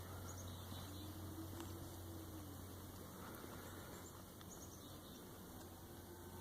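Quiet outdoor ambience: a steady low hum with faint, short high chirps a few times.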